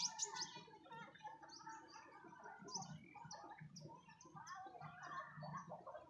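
Birds chirping: many short, high notes over lower, wavering calls.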